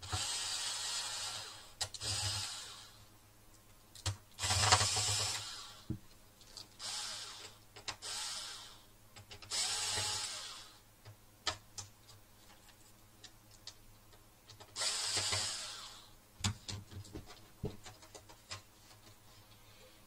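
Cordless DeWalt drill-driver backing screws out of a DVR's circuit board, running in short bursts of about a second, about seven times, with small clicks of screws and handling between them and over the last few seconds.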